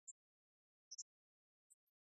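Near silence, broken by a few faint, very short, high-pitched blips: one near the start, a close pair about a second in, and another pair near the end.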